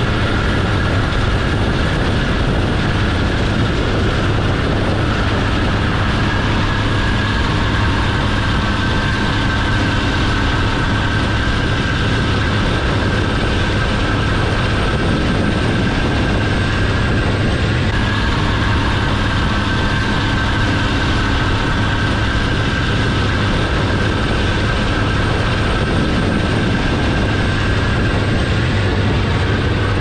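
Heavy diesel farm machinery running steadily at working speed: a constant low engine hum under a steady high whine.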